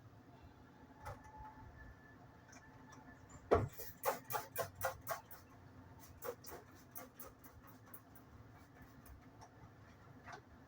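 A string of sharp clicks and light knocks: one louder knock about a third of the way in, then a quick run of clicks at about four a second, and more scattered clicks after.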